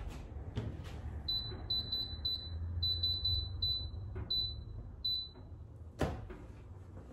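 Countertop toaster oven's glass door knocking shut, then its controls giving about a dozen short, high beeps in an uneven run as the temperature and timer are set. A sharp click comes about 6 s in.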